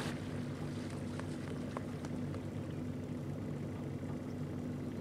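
Boat's outboard motor idling with a steady low hum.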